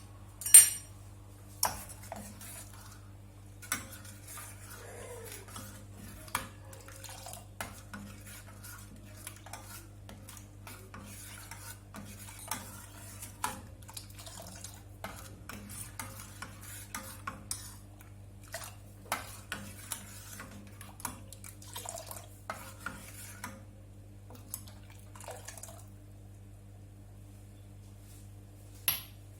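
Metal spoon stirring and scraping in a metal cooking pot, with scattered clicks and taps against its sides. A loud ringing clink comes just after the start and another at the very end. A low steady hum runs underneath.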